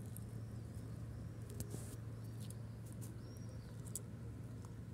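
Cat chewing and tearing at a dead magpie: scattered small clicks and a short rustle of feathers, over a steady low hum.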